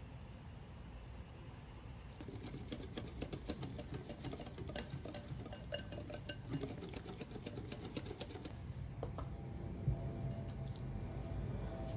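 A utensil stirring and scraping soft cream cheese and milk batter in a glass mixing bowl. From about two seconds in it makes rapid clicks and taps against the glass, which ease off after about eight seconds into softer scraping.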